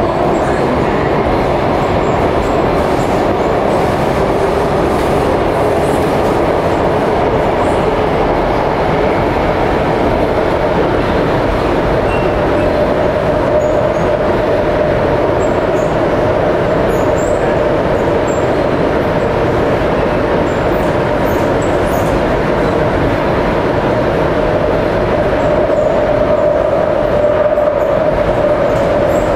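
Inside an Alstom Metropolis C751A metro train running through the North East Line tunnel: a steady rumble of wheels on rail. A humming tone rises a little in pitch over the first dozen seconds, then holds, and grows louder near the end.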